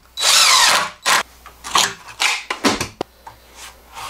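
DeWalt cordless impact driver driving a wood screw through aluminum extrusion framing into a wood block. It runs in one loud burst with a falling pitch in the first second, followed by several short blips and knocks.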